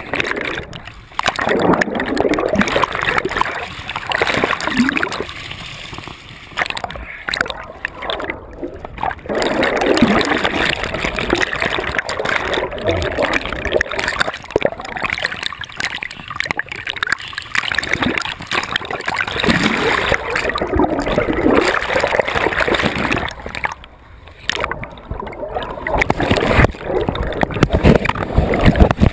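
River current splashing and gurgling over an action camera that sits half-submerged at the waterline, heard muffled when the housing is under water. The rush surges and drops back every few seconds.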